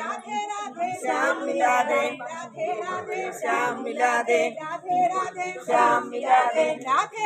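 A group of pilgrims singing a devotional chant together, without instruments.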